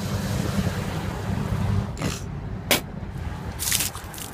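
Engine of a Ford SUV running as it rolls slowly up close, a steady low rumble under a noisy outdoor wash, with a few short scuffs partway through.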